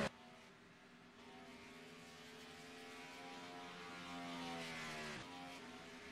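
Race car engine running at a steady drone, its pitch sagging slowly and then changing abruptly about five seconds in, as with a lift or a gear change.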